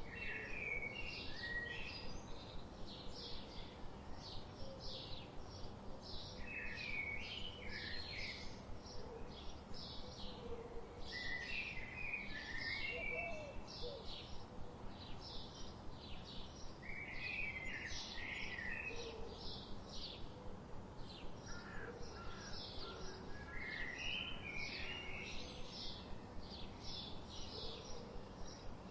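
Songbirds singing: a continuous string of short, high chirps, two or three a second, with a lower burst of warbled song phrases every five seconds or so, over a faint steady background hiss.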